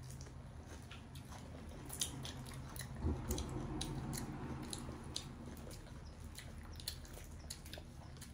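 Close-up eating sounds: chewing and biting into steamed shrimp, with the small clicks and crackles of shrimp shells being pulled apart by gloved fingers. A faint low steady hum runs underneath.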